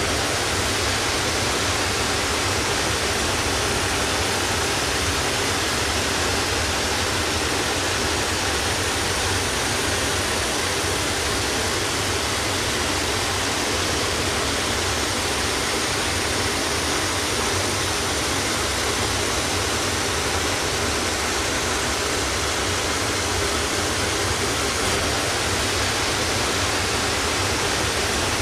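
Steady, even rushing noise that does not change, with no music or voices.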